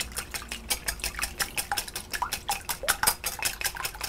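Wire whisk beating eggs in a glass mixing bowl, its wires clicking rapidly and evenly against the glass at about six strokes a second.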